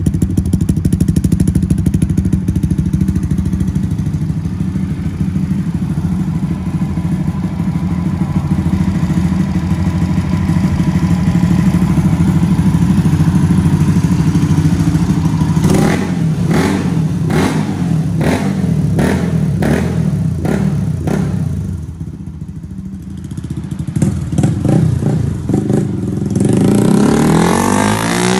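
Motorcycle's air-cooled single-cylinder engine idling steadily through an aftermarket slip-on exhaust. About halfway through comes a run of sharp throttle blips, several in quick succession.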